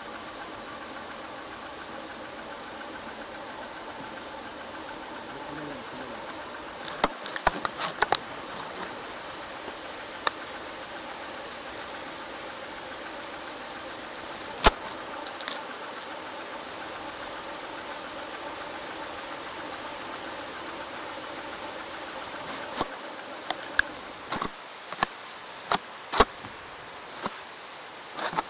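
Motorcycle engine running steadily with a buzzing hum, under the hiss of rain. Sharp clicks and taps break in, a cluster about seven seconds in, a few single ones, and several more near the end.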